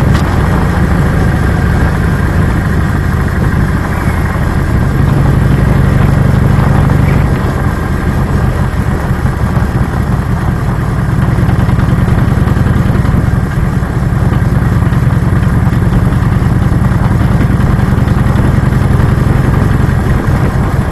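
Harley-Davidson Low Rider S (FXDLS) V-twin engine running while the motorcycle rides at town speed. The engine note shifts a few times.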